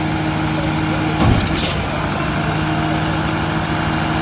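Diesel engines of a concrete pump truck and mixer truck running steadily during pumping, with one short heavy clunk about a second in.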